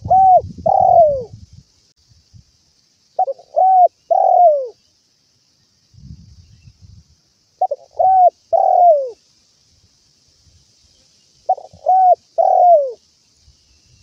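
Spotted dove cooing: four phrases a few seconds apart, each a short note followed by two longer coos, the last one falling in pitch.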